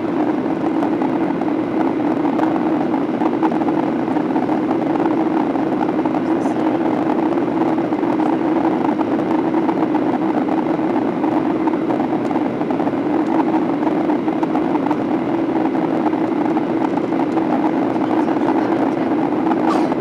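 Steady drone of a Boeing 737-800's CFM56-7B turbofan engines and rushing airflow, heard from inside the cabin, with a low hum holding an even pitch.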